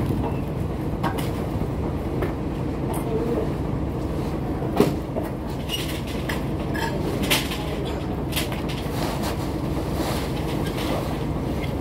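Diesel engine of a tipper lorry running with a steady rumble. Scattered knocks and clatters come through it, the loudest about five seconds in.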